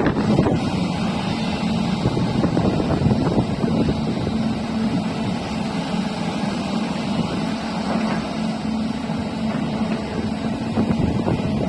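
Hyundai excavator's diesel engine running with a steady hum that grows more even about four seconds in.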